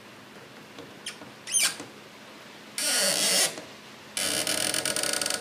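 Screwdriver tightening wire terminal screws: a short squeak about a second and a half in, then two rasping bursts of fast clicks as the screws are torqued down to make the connection tight.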